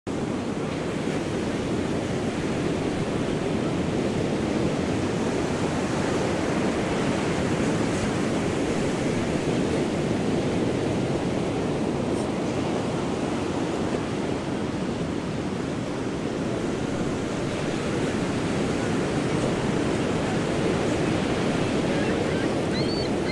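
Ocean surf washing steadily onto a sandy beach, a continuous low rushing that swells and eases slowly.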